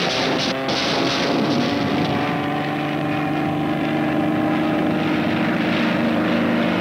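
Steady drone of a military aircraft in flight: continuous engine and propeller noise with several steady humming tones over a rushing sound.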